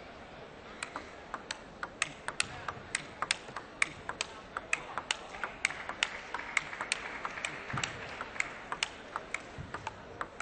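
A table tennis ball hit back and forth: a steady run of sharp clicks, about three a second, from the ball striking the rackets and bouncing on the table, some coming in quick pairs.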